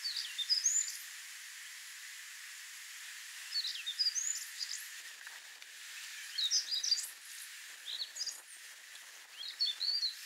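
A small songbird singing about five short phrases of quick high notes, a second or two apart, over a steady outdoor hiss.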